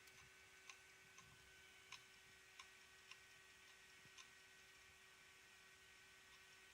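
Failing hard disk drive, faint: a steady hum with irregular faint clicks, about seven in the first four seconds, then only the hum. The clicking comes with climbing hardware ECC errors and reallocated sectors: the sign of a drive going bad.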